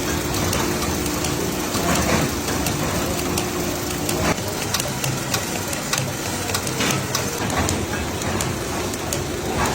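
Factory machinery running: steady, dense mechanical noise with scattered clicks and knocks, and a steady hum that stops about four seconds in.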